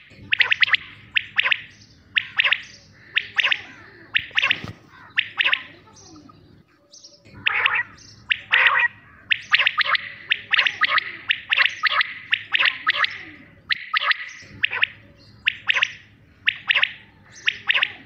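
Common quail calling over and over: short, sharp calls in quick groups, repeated about once a second, with a brief pause about seven seconds in.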